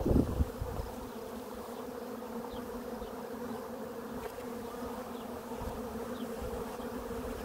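Honey bees of an opened hive buzzing around a frame of brood comb: a steady, even hum.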